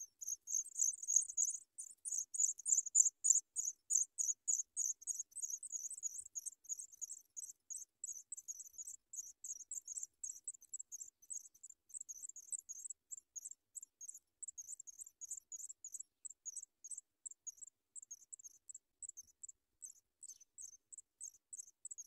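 African pipit nestlings begging for food: rapid, very high-pitched cheeping, about four calls a second, starting abruptly as the parent arrives at the nest. It is loudest in the first few seconds, then goes on more softly.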